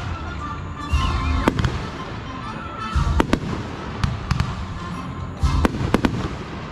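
Aerial fireworks bursting: three deep booms about two seconds apart, each followed by sharp cracks.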